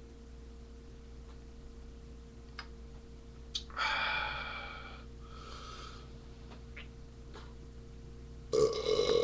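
A person's loud burp starts about eight and a half seconds in and carries on past the end. Before it there are only a few faint clicks and a short breathy sound about four seconds in.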